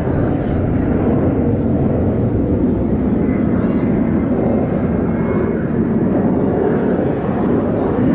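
Steady jet roar from Blue Impulse's Kawasaki T-4 jet trainers climbing away after takeoff, a loud rumble heard from the runway end.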